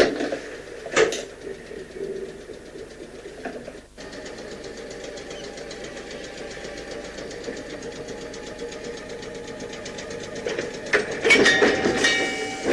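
Class 302 electric multiple unit creeping forward to couple up: a steady mechanical running sound with a fast, even ticking. Near the end come loud clanks and a squeal as its Buckeye coupler meets the other unit's and the units are joined.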